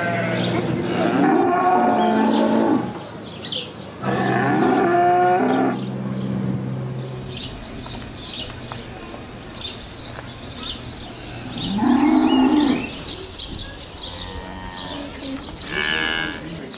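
Cattle mooing: two long, low calls in the first six seconds, with a shorter call about twelve seconds in.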